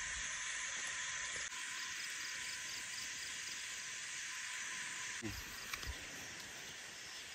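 Steady hiss of insects chirping, with a faint repeating chirp and a few soft knocks about five to six seconds in.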